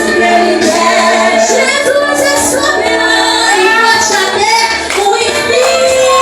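Live worship band with a group of young female voices singing a Pentecostal praise song, loud and steady, in a large hall.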